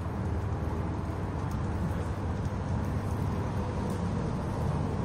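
Steady outdoor noise of rain and road traffic: a low, even rumble with a light hiss above it and no sudden sounds.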